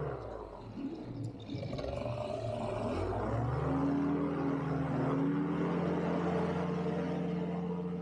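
Polini Thor 130 single-cylinder two-stroke paramotor engine and propeller dropping back to low throttle, then revving up about three seconds in and holding steady high power for the takeoff run.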